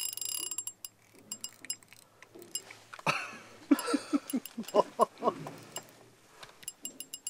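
Spinning reel on a hard-bent rod under load from a large halibut: a high drag whine fades out about half a second in, then scattered mechanical clicks and ticks from the reel as it is worked. There are a few short voice sounds in the middle, and more clicks near the end.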